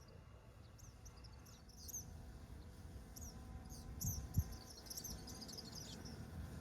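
Birds chirping outdoors: many short, quick calls that fall in pitch, over a faint low rumble, with one brief low thump a little past four seconds in.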